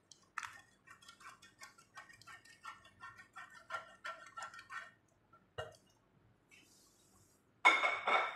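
Metal spatula patting grated cheese down in a foil-lined tray: quick crinkly taps, several a second, for about five seconds, then a single click. Near the end, a brief loud pitched sound.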